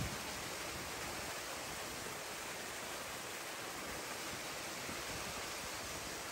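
Steady, even hiss of background noise, with no distinct events.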